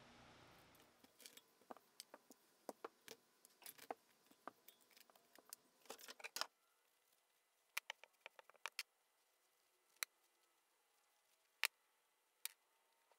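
Small steel parts of a disassembled bench grinder (bolts, nuts, washers and wheel flanges) clinking as they are handled and set down on a workbench. The clicks come in quick clusters for about six seconds, then as single sharp clicks a second or two apart.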